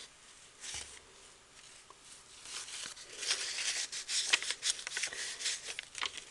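Paper and card rustling as the tags and pages of a handmade paper journal are handled and turned: a run of short, crisp rustles, sparse at first and busier from a couple of seconds in.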